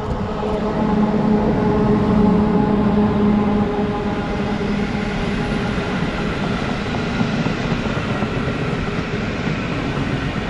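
PKP Intercity electric locomotive passing at speed with a steady hum, loudest about one to four seconds in. Its passenger coaches follow with a continuous noise of steel wheels running on the rails.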